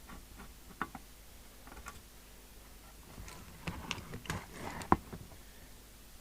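Small clicks, light knocks and scrapes of hands and tools working on a CB radio's case as its lid is taken off, busiest about three to five seconds in, with one sharp click near five seconds.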